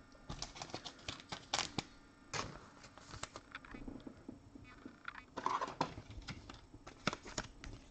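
Light clicks and plastic scraping of a trading card being handled and slid into a rigid clear plastic card holder. There are short irregular scratches throughout, louder about one and a half to two and a half seconds in and again around five and a half seconds.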